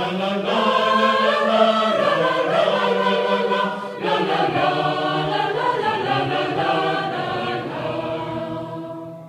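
Small mixed choir of men's and women's voices singing unaccompanied in parts. The singing breaks off briefly about four seconds in, then ends on a held chord that fades away.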